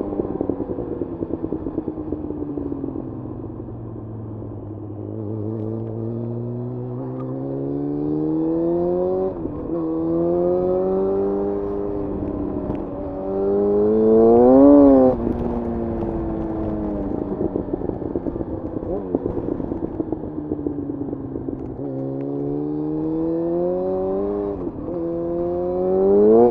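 2011 Yamaha FZ1's inline-four engine heard onboard while riding in traffic. It slows with the revs falling, then pulls up through the gears, its pitch climbing and dropping at each shift. About halfway through it gives a sharp rise and fall in revs, the loudest moment.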